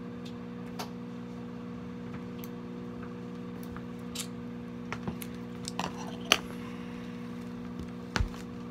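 Scissors snipping a foam kitchen sponge, heard as a few scattered short, sharp clicks, the loudest about six seconds in, over a steady background hum.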